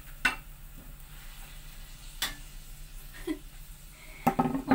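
Cooking utensil knocking against a pan a few times, sharp separate clicks over faint frying sizzle, with a louder clatter near the end.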